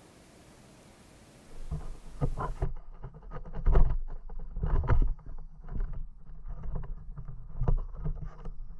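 Muffled, irregular thumps and knocks with a low rumble from an action camera in its waterproof housing on a pole, being handled in a hole in the ice and under the water. A faint hiss comes first, and the knocking starts about a second and a half in.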